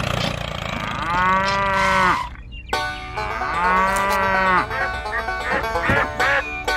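Cow mooing: two long moos, each about a second long, rising and then falling in pitch. Background music with a beat follows near the end.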